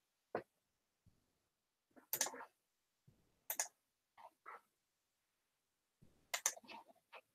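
Scattered short clicks and brief rustles, a dozen or so at irregular intervals, with complete silence between them.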